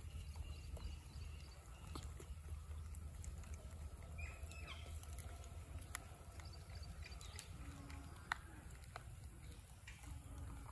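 Quiet outdoor ambience: a steady low rumble with scattered faint clicks and a few faint chirps.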